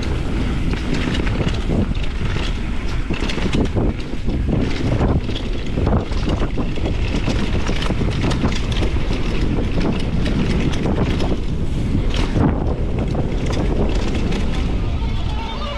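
Downhill mountain bike ridden fast down a dirt race trail: wind buffeting the microphone and tyres rumbling over dirt and grass, with frequent knocks and rattles from the bike over the bumps.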